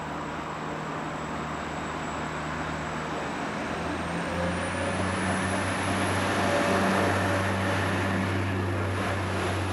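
Class 175 diesel multiple unit approaching and passing underneath, its engines' low hum growing louder, with a deeper drone swelling about four seconds in as the cab comes beneath.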